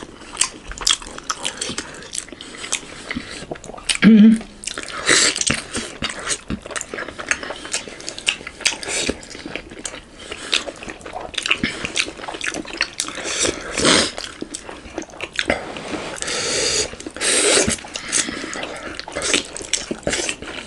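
Close-miked eating of juicy momos (Nepali steamed dumplings): chewing, wet lip smacks and clicks, and sucking slurps of the juice from the dumplings. A short hum about four seconds in.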